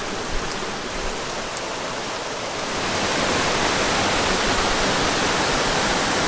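Steady rainfall, an even hiss that grows louder about three seconds in.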